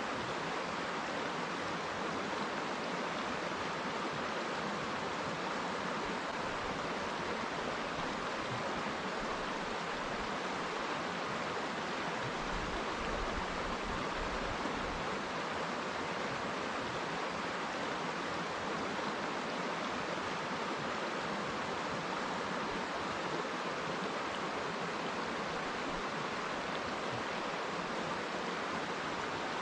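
River water rushing and splashing in a steady, even flow.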